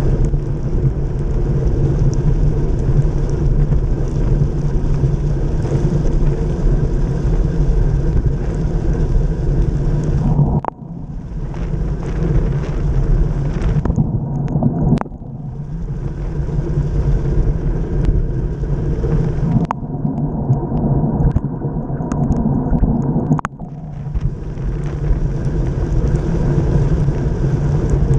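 Heavy wind noise buffeting a bike-mounted action camera's microphone as a road bicycle rides fast along a rain-soaked road, with the hiss and spray of tyres on standing water. The sound drops abruptly and changes character several times.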